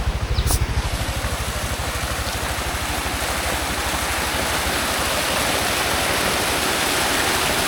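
Tuk-tuk engine idling with a steady low chug, while the rush of falling water grows louder and comes to cover it.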